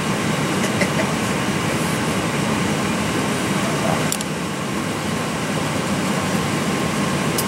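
Steady rushing ambient noise on an airliner flight deck, with two faint short clicks, about four seconds in and near the end.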